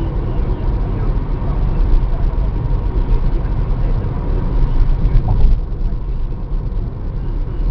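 Car driving at expressway speed: a steady, deep rumble of tyre, wind and engine noise.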